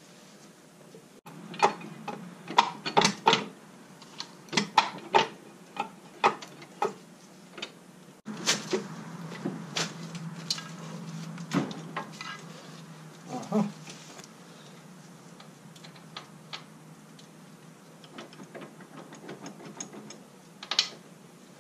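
Scattered metal clanks, knocks and scrapes as a Kohler K321 engine block on a floor jack is worked into its mounting on a Gravely 432 walk-behind tractor, the hits coming thickest in the first half.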